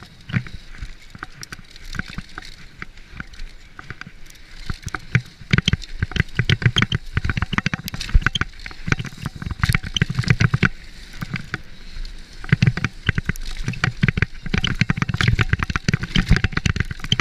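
Santa Cruz V10 downhill mountain bike descending a rough dirt trail at speed: a dense, irregular clatter and rattle of the bike over bumps and rocks, with gusty wind rumble on the camera microphone. It is sparser at first and becomes a nearly continuous clatter about five seconds in.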